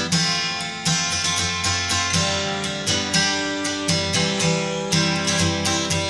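Background music: acoustic guitar strumming chords, roughly one strum a second.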